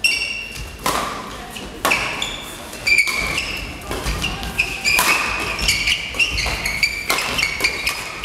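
Badminton rally: rackets striking the shuttlecock about once a second, with short high squeaks of shoes on the court floor, echoing in a large sports hall.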